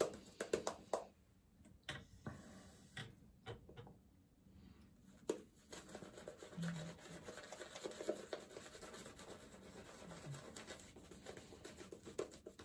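Synthetic shaving brush being worked over a lathered, stubbled face: faint, irregular scratchy rubbing strokes as the lather is built up.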